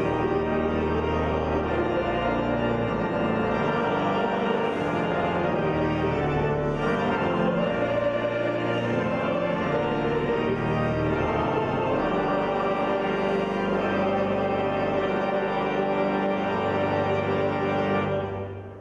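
Organ playing slow, sustained chords over a bass line. It stops near the end, and the last chord dies away in the cathedral's echo.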